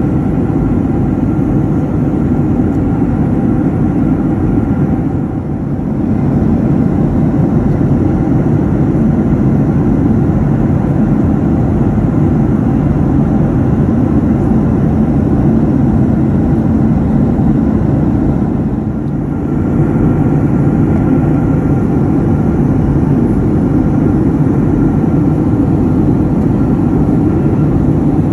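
Steady roar inside a Boeing 737 airliner cabin in flight: jet engine and airflow rumble with faint steady tones above it. The level dips briefly twice.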